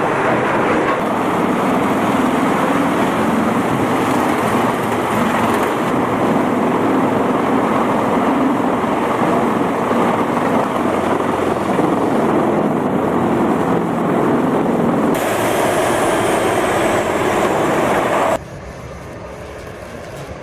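Heavy forestry machinery working: a loud, dense mechanical noise that changes character about fifteen seconds in, then drops to a much quieter level about eighteen seconds in.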